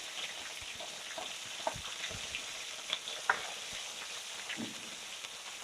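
Blended onion, garlic and ginger paste sizzling as it sautés in hot oil and is stirred: a steady hiss with scattered short clicks and knocks.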